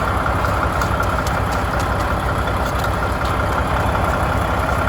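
Mack snowplow truck's diesel engine idling steadily with an even low rumble.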